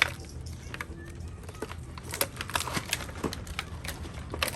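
Scattered clicks and crinkles of plastic toy packaging and a plastic action figure being handled, with a quick cluster of clicks near the end.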